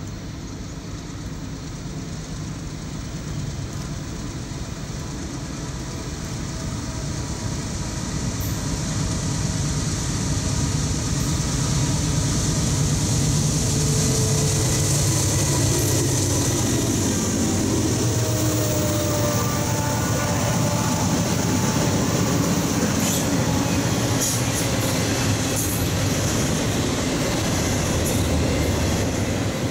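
Norfolk Southern diesel locomotives approaching and passing, their engine drone growing steadily louder over the first dozen seconds. After that comes the steady rumble of double-stack intermodal container cars rolling by, with scattered wheel clicks.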